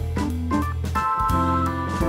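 Background music: held organ-like keyboard chords over a steady bass line, with drum hits.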